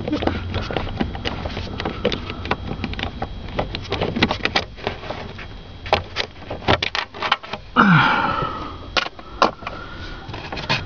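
Irregular clicks, taps and plastic rattles from the steering column shifter cover being pried and worked loose, with a short falling voice sound about eight seconds in.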